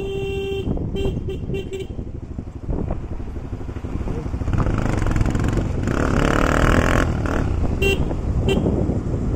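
Motorcycle running along a mountain road with wind on the microphone. A horn sounds with one held note and then four short toots in the first two seconds, an engine rises in pitch in the middle, and two more short horn toots come near the end.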